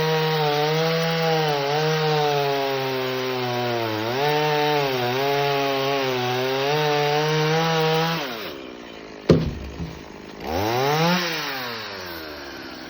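Chainsaw cutting wood, its engine pitch wavering under load, then dropping away about eight seconds in. A single sharp thump follows, then the chainsaw revs up briefly and falls back.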